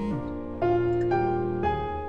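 Instrumental background music, with a new note coming in about every second.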